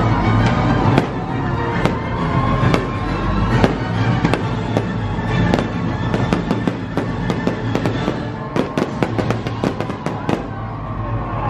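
Fireworks display: a steady run of bangs and crackles, thickest in a fast flurry of cracks about eight to ten seconds in, with music playing underneath.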